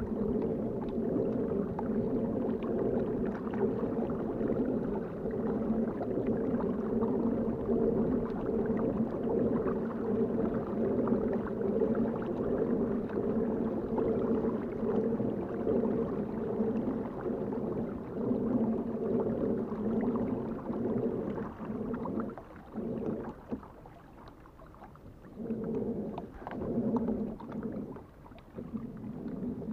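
Fishing kayak moving along the water: its drive makes a steady droning hum over water noise against the hull. The hum cuts out about three-quarters of the way through, then comes back in short spurts near the end.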